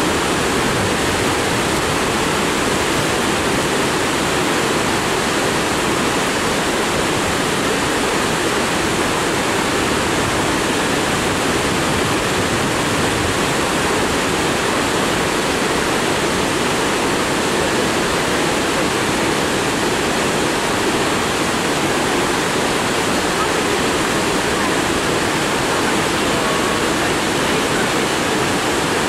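Mountain torrent rushing steadily over boulders.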